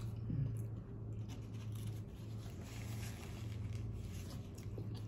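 Close-up eating sounds: chewing and small handling noises of food, over a steady low hum.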